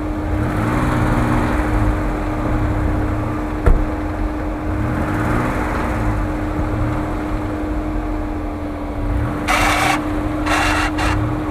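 UAZ off-roader's engine labouring as it pushes through deep snow, the revs rising and falling twice. A single sharp knock about a third of the way in, and several short hissing bursts near the end.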